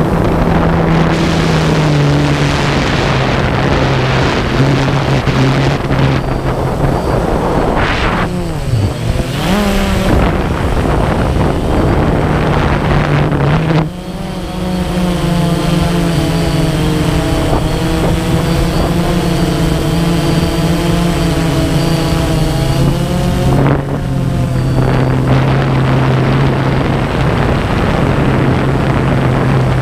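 DJI Phantom quadcopter's motors and propellers humming close up, as picked up by the camera riding on the drone, with some wind noise. The pitch shifts up and down as it manoeuvres, dipping and climbing back about eight to ten seconds in.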